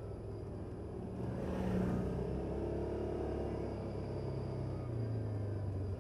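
Yamaha Viking side-by-side's single-cylinder engine running steadily under way on a snowy trail, heard from inside the cab; it swells briefly about a second and a half in.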